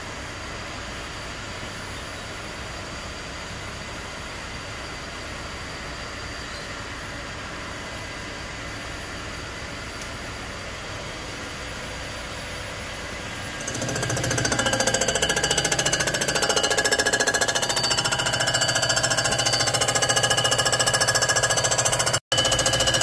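Comec ACF200 head-surfacing machine running with a steady hum; about 14 seconds in it grows louder as the rotating cutter head bites into the cast-iron IHC C60 cylinder head deck, turning into a fast, even rattling chatter with ringing tones. The sound cuts out for an instant near the end.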